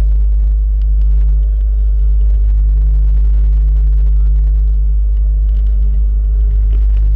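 Steady low engine drone, running evenly throughout without rising or falling.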